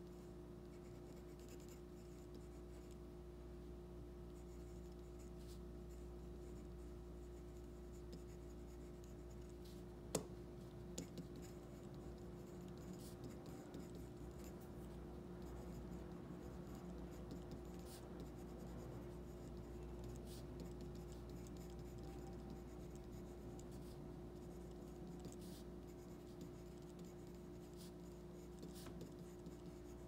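Mechanical pencil lead scratching faintly on paper, stroke by stroke, as block letters are written, over a steady low hum. One sharp click about ten seconds in, with a couple of softer ticks just after, is the loudest sound.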